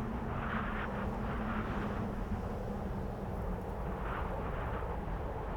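Cold winter wind blowing, a steady low rumble with gusts that swell into a higher rushing hiss, once about half a second in for over a second and again around four seconds in.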